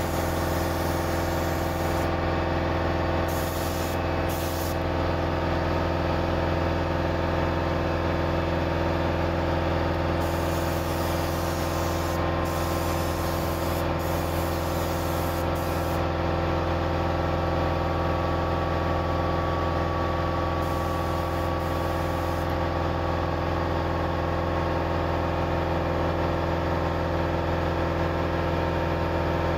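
Gravity-feed paint spray gun laying clear coat, its air hiss coming in bursts that start and stop as the trigger is pulled, the longest about two seconds. Under it a steady machine hum of a motor running runs on without a break.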